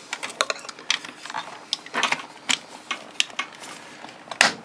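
Plastic housing halves and parts of a reciprocating saw being handled and fitted back together: a run of irregular clicks and light knocks, with one louder knock near the end.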